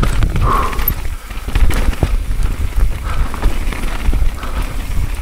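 Mountain bike hammering down a rough trail at speed: a constant clatter of knocks and rattles as the wheels hit roots and rocks, over a heavy wind rumble on the rider's camera microphone.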